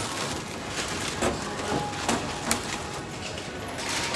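Supermarket checkout background noise: a steady hubbub with scattered knocks and clicks.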